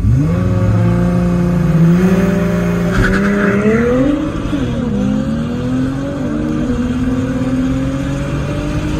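Stock Nissan GT-R's twin-turbo V6 at full throttle in a launch from a standstill, heard from inside the cabin. The engine note climbs and falls back at each of several quick upshifts, then keeps rising steadily toward the end.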